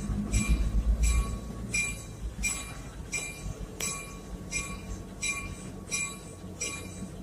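A railroad bell ringing steadily, about three strokes every two seconds, over a train's low rumble, which is heaviest in the first second.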